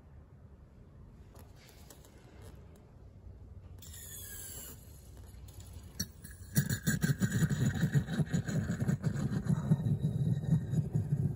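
Starter motor cranking the 1977 Toyota Crown's engine, a steady pulsing churn that begins a little past halfway after a quiet stretch with a brief hiss.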